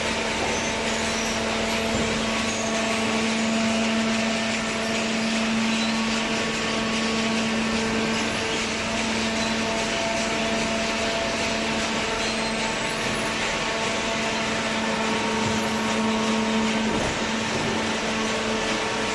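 Cardboard baler machine running with a steady, even hum over a hiss.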